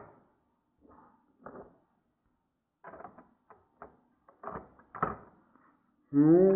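Lego bricks handled and knocked against a wooden tabletop: a handful of soft, separate clicks and knocks. About six seconds in, a voice makes a short sound that slides upward in pitch.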